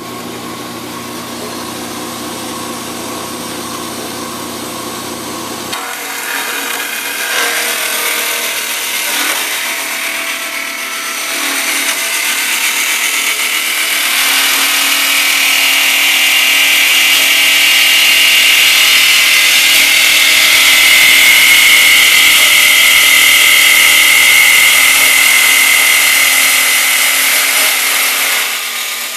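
Ellis 1600 metal-cutting bandsaw switched on and running, then its blade cutting through a bundle of square metal tubing. The cutting grows louder from about halfway through, with a steady high-pitched whine on top of the motor's hum.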